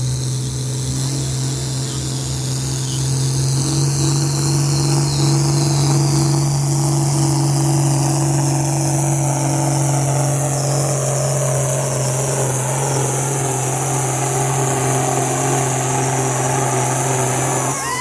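Competition pulling tractor's engine running hard at a steady pitch during a pull down the track, getting louder about three seconds in.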